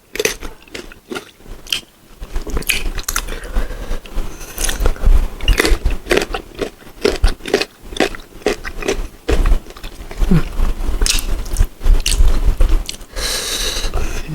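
Close-up crunchy bites and chewing of firm, unripe green mango: crisp crunches come in quick irregular runs, with wet mouth sounds between them.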